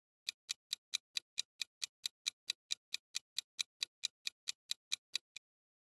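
Clock-tick sound effect of a quiz countdown timer: an even run of sharp ticks, about four and a half a second, that stops abruptly a little over five seconds in, the last tick softer.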